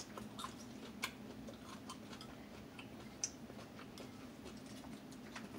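Faint, irregular small clicks and smacks of someone chewing food with the mouth closed, with a few light clicks of a plastic fork picking at salad on a plate.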